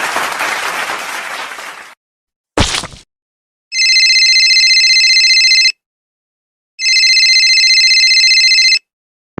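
A telephone ringing twice, each ring about two seconds long with a second's pause between. Before it, a loud stretch of noise fades out about two seconds in, followed by a short sharp hit.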